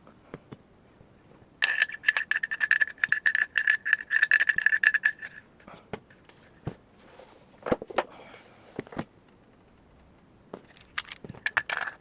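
Small metal rifle parts clicking and rattling as they are handled and fitted, with a ringing metallic tone through a fast run of clicks over a few seconds. Scattered single clicks and knocks follow, then a second brief rattle near the end.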